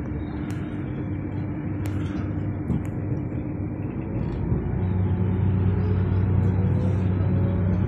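Tram pulling away from a stop: a steady low hum, joined about halfway through by a stronger hum and a whine from the electric traction motors that slowly rises in pitch as the tram gathers speed.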